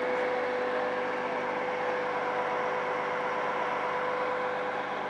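Liebherr mobile crane's diesel engine running steadily, with a constant whine over the engine's drone.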